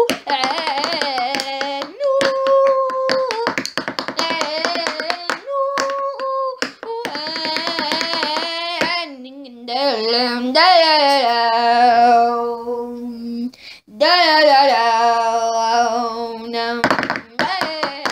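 A voice singing without words in long held notes and sliding pitches, in phrases of a few seconds, over a patter of hand percussion that is busiest in the first half.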